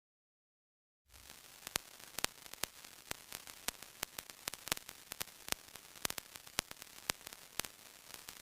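Crackling static: a steady hiss with irregular sharp clicks, a few a second, starting after about a second of silence.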